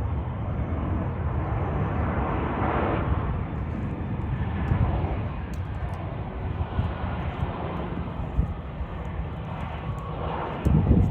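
Jet engine noise from a Boeing 737-800's CFM56 engines, a steady roar with a swell a couple of seconds in. Heavy wind rumble buffets the microphone, with a louder low gust near the end.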